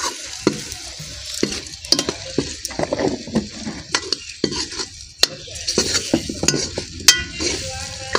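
A long steel spoon stirring and scraping onions frying in oil in a steel kadhai, with irregular metal clinks against the pan over a steady sizzle.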